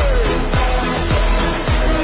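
Pop music with an electronic kick drum whose pitch drops on each beat, a little under two beats a second, under a sliding melodic line that falls in pitch near the start.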